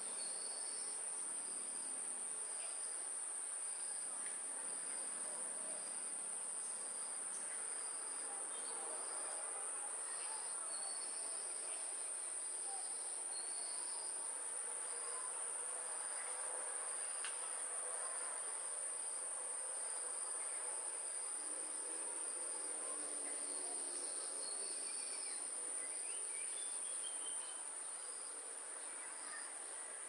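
Insects shrilling in a steady, unbroken high-pitched drone, with a fainter chirp repeating about once a second and a few faint scattered chirps.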